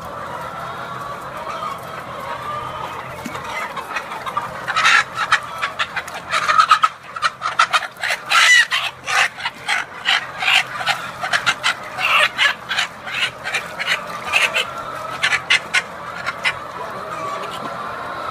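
A chicken clucking while it is held and scrubbed in a tub of mite-treatment liquid. From about five seconds in until near the end there is a run of rapid splashing mixed with squawks.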